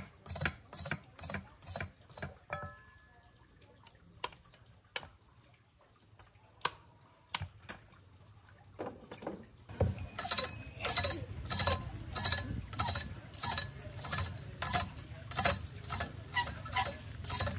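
Sugarcane stalks being scraped clean in quick rasping strokes, about two a second. The strokes stop about two seconds in, leaving only a few scattered clicks, and start again about ten seconds in.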